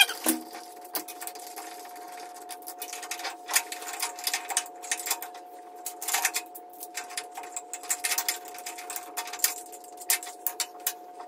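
Electrical tape being pulled off the roll and wound around wire-nut connections in a motor's wiring box: a run of irregular crackling, tearing clicks, over a faint steady high hum.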